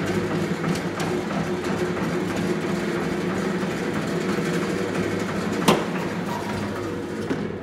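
Treif 91/1 industrial meat slicer running, its electric motor giving a steady hum under a rapid mechanical clatter, with one sharp knock about six seconds in. The sound starts to die away at the very end.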